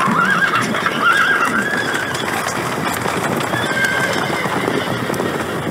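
Horse sound effects from a show soundtrack: horses whinnying over galloping hooves. There is a wavering whinny through the first two seconds and a shorter one near four seconds.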